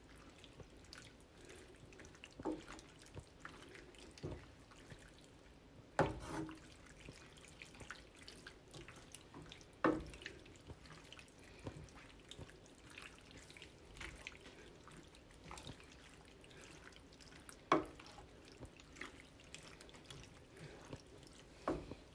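Silicone spatula stirring penne pasta through a thick, creamy cheese sauce in a non-stick pan: soft, irregular wet squelches and clicks, with about four louder knocks along the way.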